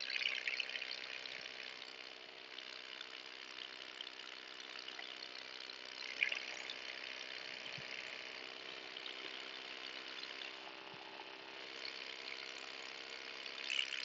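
Paramotor engine running at a steady pitch, heard faint and muffled under a steady hiss, with three short louder bursts of hiss about six seconds apart.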